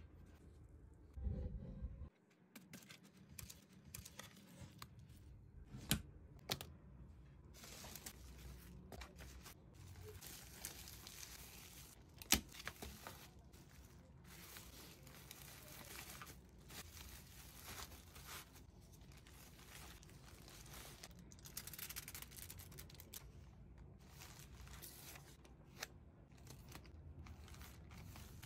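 Hands packing a parcel: bubble wrap and plastic packaging crinkling and rustling, with tearing of packaging and scattered sharp clicks, all faint.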